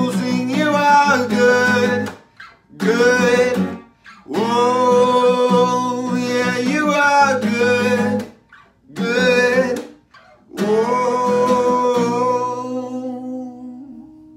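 A man singing long held notes over a strummed Taylor acoustic guitar, in several phrases where voice and guitar stop together briefly. Near the end the last phrase and chord fade away, leaving a faint ringing note.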